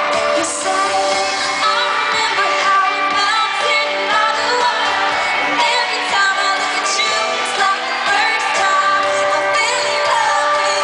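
Live band with a female lead singer performing a pop song, heard from the audience in a large arena.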